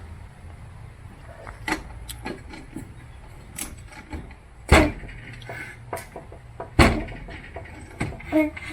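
Hand tools clicking and clanking on a lawn mower's metal deck, with two loud sharp knocks, one about halfway through and one two seconds later, as a 5/8 socket is worked on a stuck fastener.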